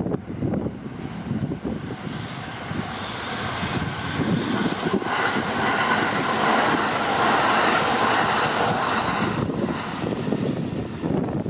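Freight train running past over a level crossing: a steady rumble with the clatter of wheels on rail, and a hiss that builds, peaks in the middle and fades away near the end.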